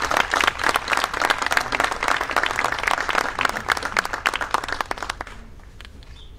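A small audience applauding, the clapping dying away a little after five seconds in.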